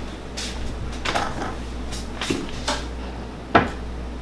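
A few short knocks and clatters as a glass olive oil bottle and a frying pan are handled at an electric stove. The loudest knock comes about three and a half seconds in.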